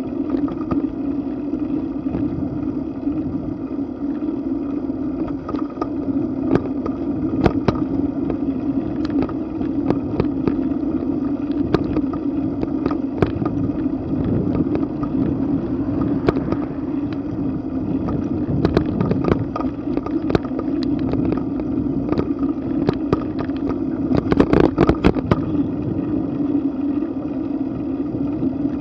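Bicycle rolling along pavement, heard through a bike-mounted camera: a steady rumble of tyres and wind, with frequent sharp clicks and rattles from the bike and mount. A brief burst of rattling comes about three-quarters of the way through.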